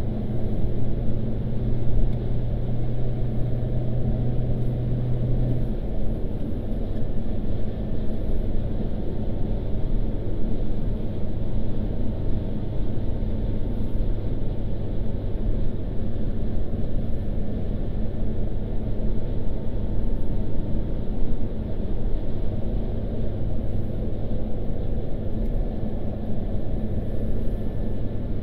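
Steady road and engine noise inside a moving car's cabin, a low rumble of tyres and engine. The engine hum drops slightly in pitch about six seconds in.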